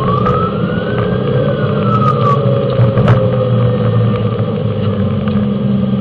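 Fire engine driving on emergency response, its engine and road noise loud and steady in the cab, with a siren winding up and then falling away over the first two or three seconds. A few light clicks and rattles near the middle.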